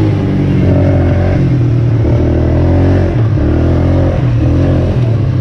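ATV (quad bike) engine running close up while being ridden, its pitch shifting down and back up several times.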